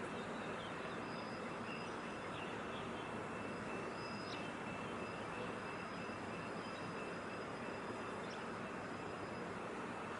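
Steady outdoor harbour background noise, an even hiss and hum, with faint thin high-pitched tones coming and going.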